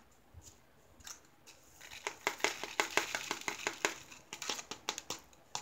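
Square AB crystal rhinestone drills pouring from a plastic tray into a small plastic bag: a quick, dense run of tiny clicks and plastic rustling that starts about two seconds in.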